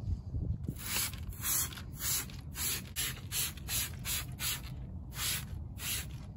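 Trigger spray bottle squirting cleaner onto a car tyre in quick repeated pumps, about two to three hissy spurts a second, with a short pause about five seconds in. A low wind rumble lies on the microphone underneath.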